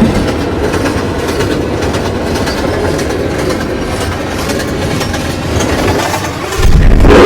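New York City subway train running in the station, a steady rumble and rattle of wheels on rail. A louder, deeper rumble starts suddenly near the end.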